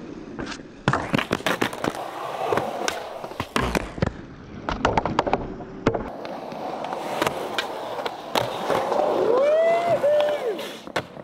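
Skateboard wheels rolling on concrete, broken by sharp clacks and clatters of the board popping, flipping and hitting the ground during tricks. A person calls out near the end.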